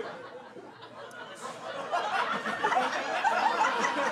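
Audience laughing at a punchline, faint at first and swelling about a second and a half in.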